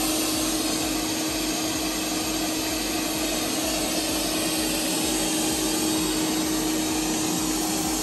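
ZOOZEE Z50 robot vacuum cleaner running on carpet with strong suction: a steady fan whir with a steady hum under it as it drives across the floor.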